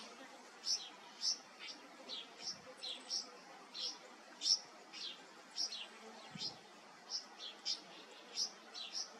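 Young red wattlebird giving short, high calls that slide downward, repeated about twice a second: a fledgling's begging calls to be fed.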